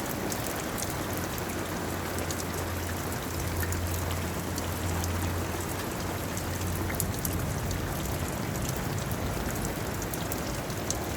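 Steady rain falling, with many sharp drop ticks over an even hiss, and a low steady hum underneath that swells in the middle.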